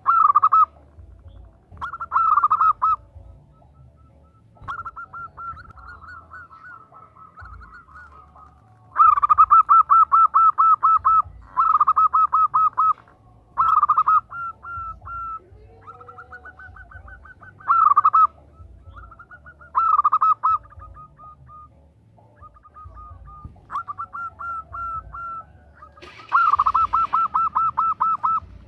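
Female zebra dove (perkutut) calling: repeated bursts of rapid, evenly pulsed notes, each about a second long, with softer trains of notes in between.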